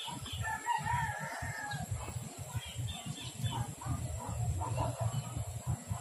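A rooster crowing, one long wavering crow starting about half a second in and lasting about a second and a half, with a steady low rumble on the microphone underneath.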